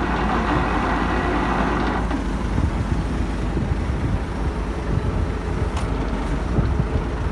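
Steady low rumble of a truck engine idling, with a hiss in the upper range that eases off about two seconds in.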